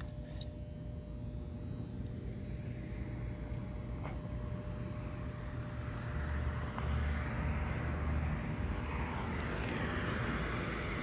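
A cricket chirping steadily, its high chirps evenly repeated without a break. About halfway through, a broad hiss of background noise with a low rumble grows louder under it.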